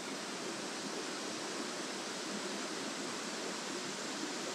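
Shallow mountain stream running over rocks: a steady rush of water with no change in level.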